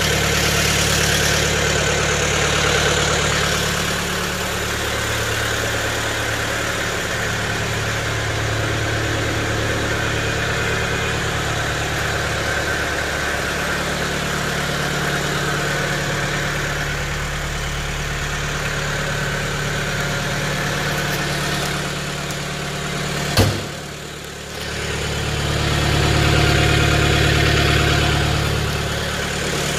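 The four-cylinder diesel of a 1972 Mercedes-Benz 220 D idling steadily with its diesel clatter. Late on there is one sharp click and the engine sound drops briefly before returning.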